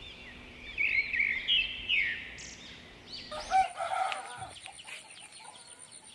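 Small birds chirping and twittering in quick, high calls. About three seconds in, a rooster crows, louder and lower. More bird chirps follow.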